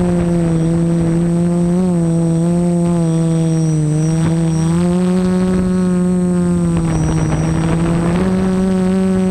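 Multirotor camera drone's electric motors and propellers humming steadily, the pitch wavering slightly and stepping up a little a couple of times as the drone adjusts its flight.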